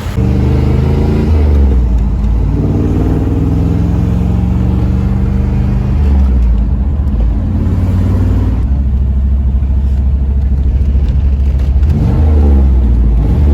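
Car engine running loudly at a drag strip, its pitch rising and falling as it is revved a few times, with a strong low rumble throughout.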